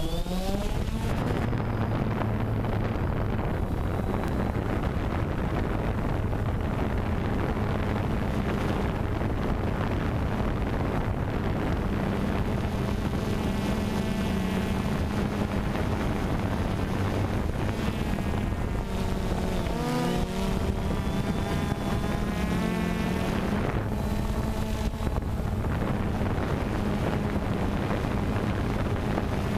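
DJI Phantom 2 quadcopter's four electric motors and propellers heard close up from its onboard camera: a steady buzzing hum over a heavy rush of prop wash on the microphone. The pitch climbs in the first second as it lifts off, and wavers briefly about two-thirds of the way through as the motor speeds change.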